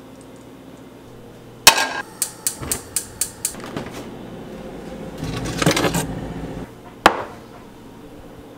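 Kitchen handling sounds with a frying pan and a refrigerator door: a sharp clank, then a quick run of about seven clicks, a stretch of rustling, and a last sharp clack near the end.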